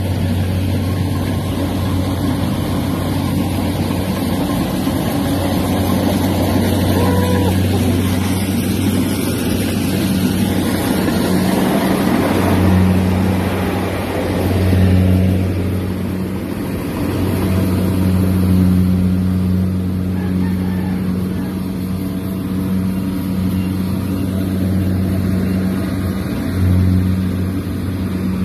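Tracked rice combine harvester at work: its engine runs steadily with a low, even hum over a broad mechanical noise, swelling and easing a little now and then.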